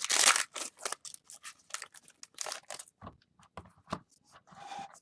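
Packaging of a sealed trading-card box being torn and crinkled open: a burst of tearing and crackling at first, then scattered crinkles and clicks, with a short rustle near the end.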